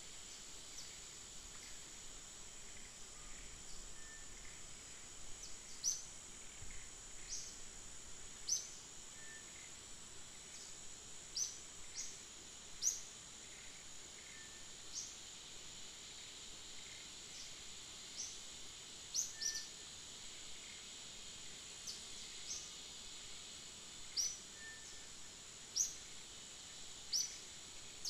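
Outdoor ambience: a steady high-pitched insect drone, with short high chirps every second or two, likely birds.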